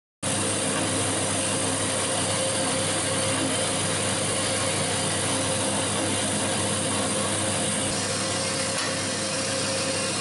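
Vertical band saw running with its blade cutting through a steel block: steady mechanical cutting noise with a constant hum under it, starting suddenly just after the start.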